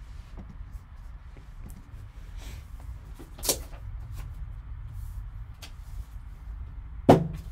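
Gloved hands handling a shrink-wrapped trading-card box and peeling a paper note off it: scattered soft taps and rustles, a sharper knock about halfway through and a louder short knock near the end, over a steady low hum.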